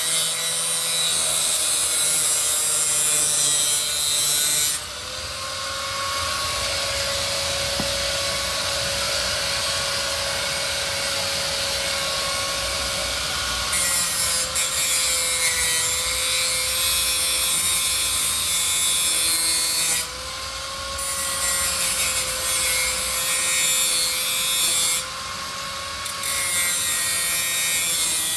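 Electric angle grinder grinding down bolt heads to round them, a steady motor whine under a loud grinding hiss. A few times the grinding eases off for a moment while the motor keeps running.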